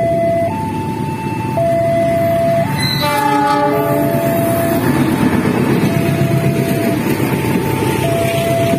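Level-crossing warning alarm alternating between two tones, switching about once a second. About three seconds in, the approaching diesel locomotive sounds its horn for about a second. The rumble of the passing train then builds under the alarm.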